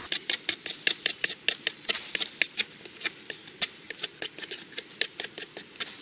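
A sharp folding-knife blade (CIMA MF-15) whittling a wooden stick in quick, short strokes. Each cut is a brief scraping click, about five a second, in an uneven rhythm.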